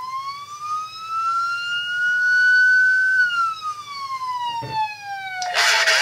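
Police siren sound effect played from a BlackBerry sound-effects app: a single slow wail that rises for about three seconds and then falls away. A louder, harsher sound cuts in near the end.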